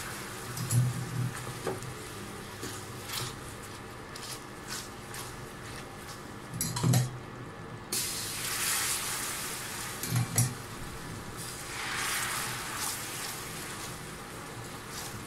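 Hot caramel sizzling and bubbling in a stainless steel pan as sugar syrup is spooned in and stirred with a silicone spatula. The sizzle surges twice, about halfway through and again near the end, with occasional light clicks and knocks of utensils against the pan.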